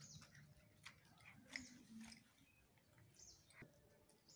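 Near silence: faint outdoor background with a few short, high chirps, one near the start and one about three seconds in, and scattered light clicks.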